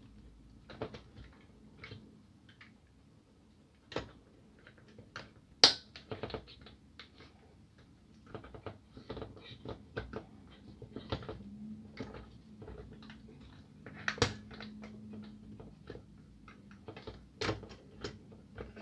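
Scattered clicks and taps of plastic and metal parts as the main charger assembly is worked free from a Kyocera DK-150 drum unit by hand and with a small screwdriver. Three sharper snaps stand out: about six seconds in, about fourteen seconds in, and near the end.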